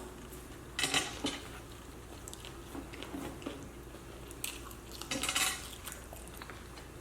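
Brief handling sounds of food and its wrapping at the table: two short spells of rustling and clinking, about a second in and again around five seconds in.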